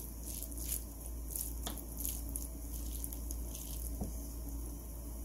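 Wooden spoon mixing moist stir-fried potato strips on a ceramic plate: irregular soft, wet scraping and squishing strokes, a few a second, thinning out near the end, over a steady low hum.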